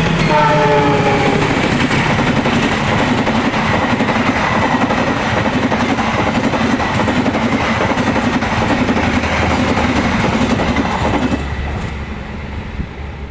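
Diesel-hauled passenger train, KA Taksaka, going by. The locomotive's horn sounds at the start and drops in pitch as it passes, followed by the loud rumble and clatter of the carriages over the rail joints, easing off near the end.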